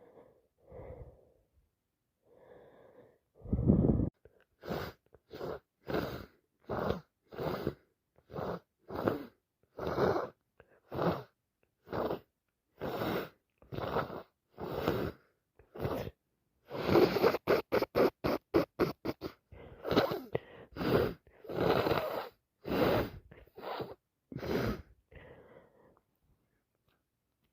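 A person with a heavy head cold sniffing over and over in short, wet-sounding breaths through a blocked nose, about two a second. There is one louder burst a few seconds in and a quick flurry of sniffs about two-thirds of the way through.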